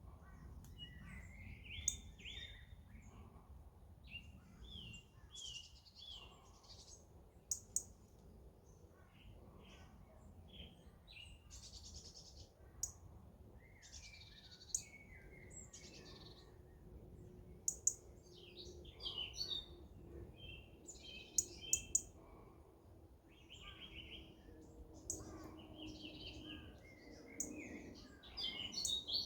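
Woodland birds chirping and singing, many short calls and trills scattered across the whole stretch. A faint low steady hum comes in about halfway through.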